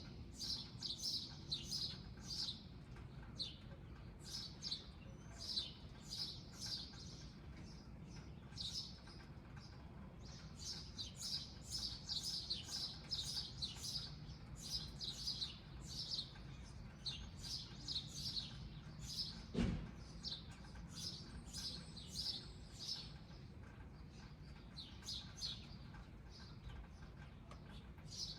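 Small birds chirping: many short, high chirps overlapping continuously. A single sharp knock about two-thirds of the way through.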